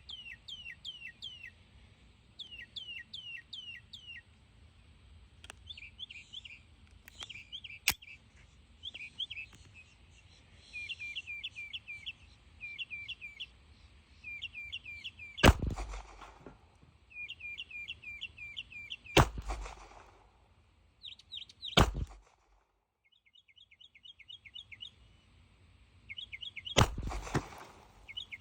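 A bird calls over and over in quick runs of short falling notes that sound like laughing. Four loud shots ring out about 15, 19, 22 and 27 seconds in, fired from a Kahr P380 .380 ACP pistol, with a sharp click about 8 seconds in.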